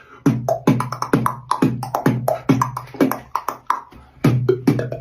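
Beatboxing: a steady beat of mouth-made bass thumps and clicks, about three hits a second.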